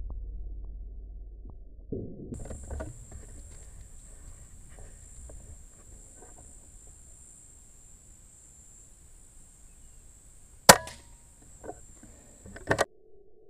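Uragan 2 PCP air rifle in 5.5 mm firing a single shot, a sharp crack about two-thirds of the way through, followed by a few smaller knocks and then a close pair of sharp knocks near the end.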